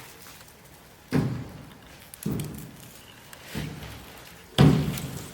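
Four dull thumps about a second apart, each sudden and dying away quickly, the last the loudest.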